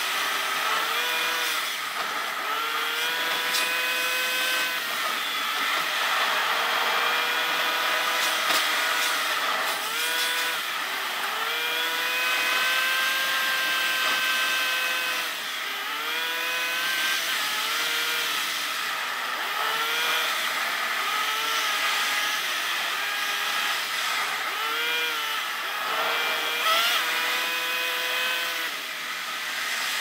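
Car engine heard from inside the cabin, sped up with the time-lapse footage so that it sounds like a high-pitched motor whine. Its pitch rises and falls over and over as the car accelerates, shifts and slows.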